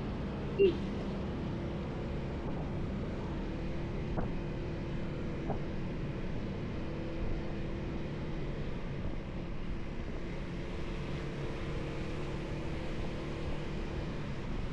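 Motorcycle engine running steadily while riding, under constant wind and road noise. There is one short, sharp, loud sound about half a second in.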